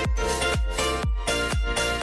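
Background electronic dance music with a steady beat of deep kick drums, about two a second.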